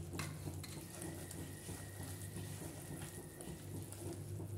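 Silicone spatula stirring and scraping thick ground-biscuit paste around a non-stick frying pan as it cooks down in bubbling one-string sugar syrup, with soft irregular taps over a low steady hum.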